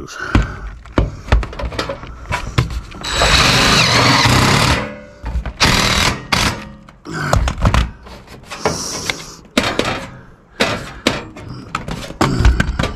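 Cordless impact driver hammering a screw through a corrugated steel roofing panel into a board beneath: one long run of about two seconds about three seconds in, then shorter bursts. Between them come sharp clicks and knocks as the metal panel and the driver are handled.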